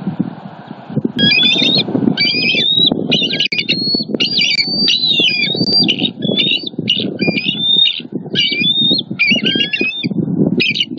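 Bald eagles giving alarm calls at an intruding eagle flying over the nest: a long run of rapid, high piping chatter notes, starting about a second in. A low rumbling noise runs underneath.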